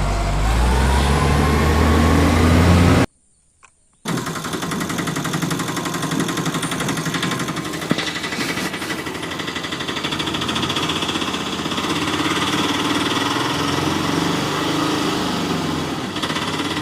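Steady, rapid mechanical rattling like a small motor running, cut off by about a second of silence three seconds in, then resuming evenly.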